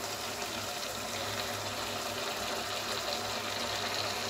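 Steady soft sizzle of carrot halwa cooking in ghee in an aluminium pressure cooker on a gas burner, over a constant low hum.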